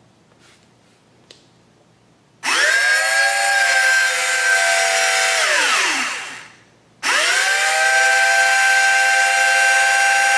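The four small brushed motors of a Syma X8C/X8W quadcopter, without propellers, spin up sharply to a loud, high, steady whine, wind down with a falling pitch, then after about a second's pause spin up again. They are overvolted on a 14.8 V 4S battery at about 15 volts and drawing several amps, far above their normal current.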